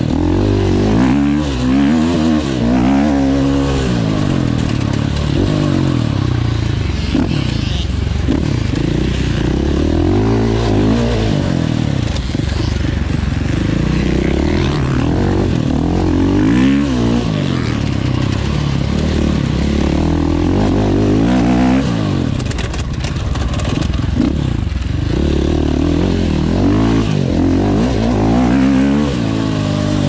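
Enduro dirt bike engine riding hard, its pitch rising and falling over and over as the rider opens the throttle, shifts and backs off.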